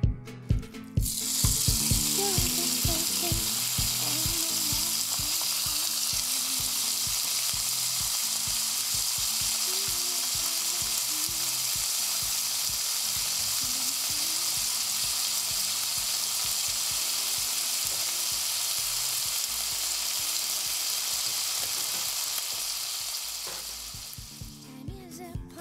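Food frying, a steady sizzle that starts about a second in and fades out near the end.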